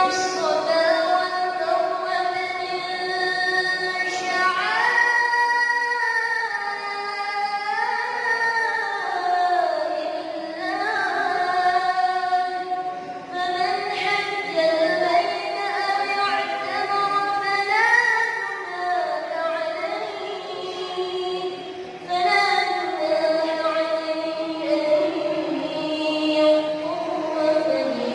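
A young imam's voice reciting the Qur'an in a melodic, sung style: long held notes that slide and turn between pitches, broken only by a few short pauses for breath.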